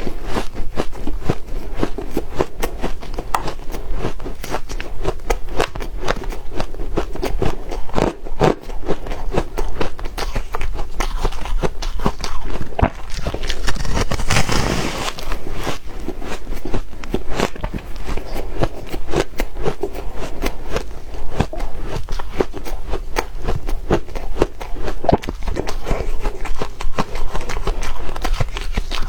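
Close-up chewing of soft, powdery ice: a dense, continuous run of crunches and crackles.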